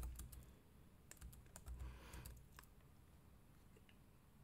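A few faint computer keyboard keystrokes, with the clicks dying away about halfway through.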